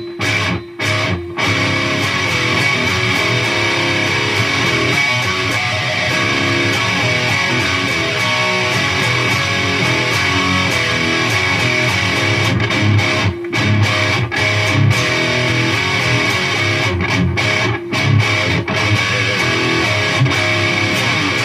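Electric guitar played through a Peavey Triple XXX II tube amp head and 2x12 cabinet, on a distorted gain channel with the fat switch engaged for a fuller hard-rock tone. He plays a loud riff of sustained chords with a few short, abrupt stops near the start and again about two-thirds of the way through.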